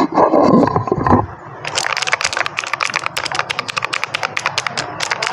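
Rapid typing on a mechanical keyboard with clicky Outemu Blue switches, some of them washed and lubed: a quick run of sharp key clicks, about eight to ten a second, starting about a second and a half in after a brief low noise.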